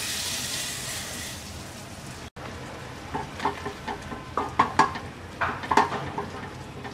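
Hot ghee tempering sizzling as it hits a pan of chana dal with spinach, fading over the first two seconds. Then a wooden spatula stirs the dal, with scrapes and sharp knocks against the pan.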